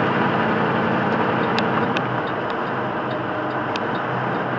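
Steady road and engine noise inside a semi truck's cab at highway speed, with a low hum and light ticks recurring about twice a second.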